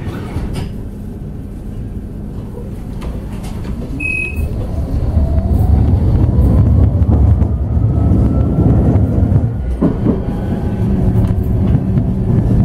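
Interior sound of a Bombardier Incentro tram accelerating: the traction motor whine climbs steadily in pitch over a running rumble that grows louder. A short high beep sounds about four seconds in.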